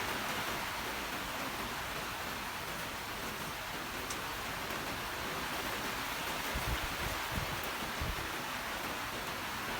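Steady rain falling, an even hiss. A few short low rumbles come through about two-thirds of the way in.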